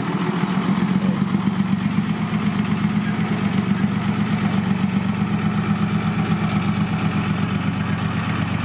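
Isuzu six-wheel dump truck's diesel engine running at low revs with a steady, even throb while the loaded truck reverses.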